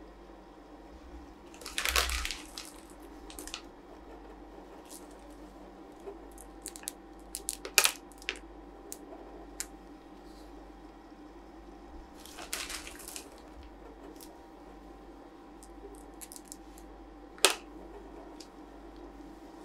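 Chocolate lentils being set one by one on a cup of rolled ice cream: scattered light clicks and taps, two sharp ones standing out, with two brief rustles, about two seconds in and again past twelve seconds. Under it all a faint steady hum from the roll-ice machine.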